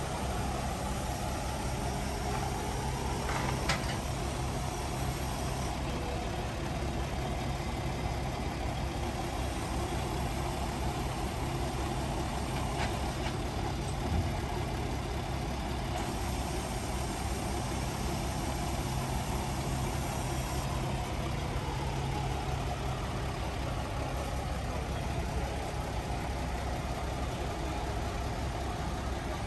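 Diesel crane-truck engine running steadily, driving the truck-mounted knuckle-boom crane's hydraulics during a boat lift. A few short knocks come through, about 4, 13 and 14 seconds in.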